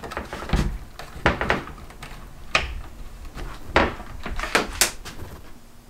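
Latch and door of a locomotive cab's toilet compartment being worked open: a series of about six sharp clicks and knocks.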